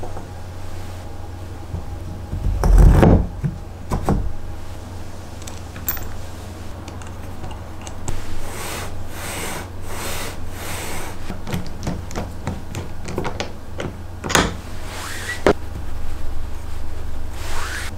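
Handling of plywood parts and a steel bolt: wood blocks and metal knocking and sliding against each other, with a loud thud about three seconds in, several sharp clicks and a run of scraping, and a rising scrape near the end as a plywood block is slid along its rail. A steady low hum sits underneath.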